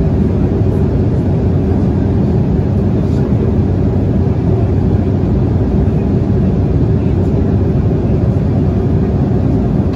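Steady low rumble of an Embraer E190's GE CF34-10E turbofan engines and rushing air, heard from inside the passenger cabin during the climb after takeoff.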